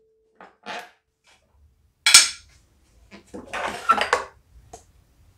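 Plastic drive-belt cover of a push mower being pulled off and handled: scattered clicks, knocks and rattles of hard plastic, the sharpest knock about two seconds in and a cluster of rattles shortly after.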